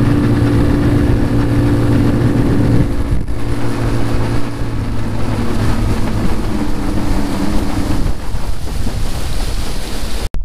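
Motorized kayak's motor running at speed, with water rushing along the hull and wind buffeting the microphone. The motor's tone shifts about a third of the way in and fades out near the end as the kayak slows, leaving water and wind noise.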